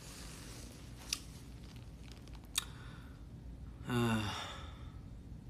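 A man's soft breath out, then a short voiced sigh with a slightly falling pitch about four seconds in; two small sharp clicks fall in between.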